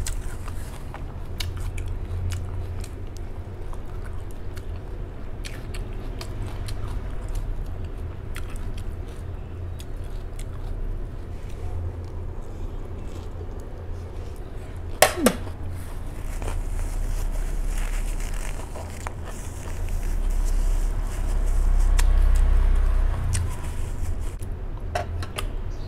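Close-up chewing and crunching of crisp lettuce salad, many small crackling bites over a steady low rumble. One sharp click about fifteen seconds in.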